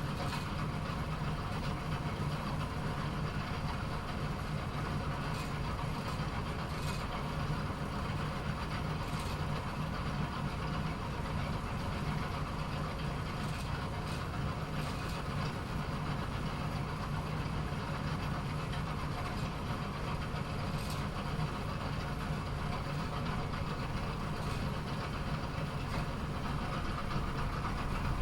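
Automatic bowling pinsetter machine running through its pin-setting cycle: a steady mechanical hum with a low drone, and a few light clicks and knocks scattered through it.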